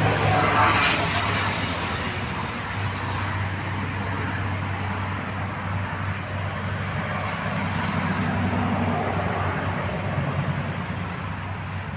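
Road traffic noise: vehicles running past on a nearby road, a steady low hum and rush that swells briefly about half a second in.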